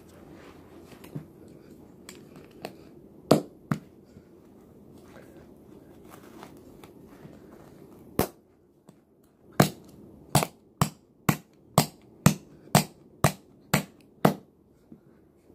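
Scissors cutting through a stiff sheet from a taken-apart keyboard: a few scattered sharp snaps, then about ten loud snips in a row, about two a second, in the second half.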